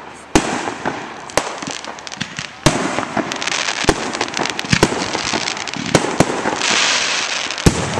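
Fireworks display: sharp bangs of aerial shells going off about once a second over a continuous crackle of bursting stars, with a loud hiss of crackle about two-thirds of the way through.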